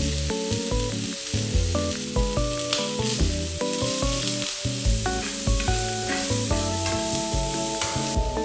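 Vegetables sizzling in hot oil in a frying pan, first broccoli florets, then diced onion near the end, over background music with a melody.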